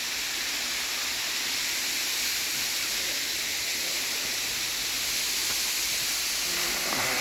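Waterfall's running water close to the microphone: a steady, unbroken rushing hiss.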